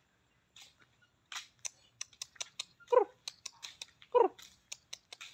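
Light clicks and scuffs of footsteps on a concrete path. Twice, about three and four seconds in, an animal gives a short call that falls in pitch.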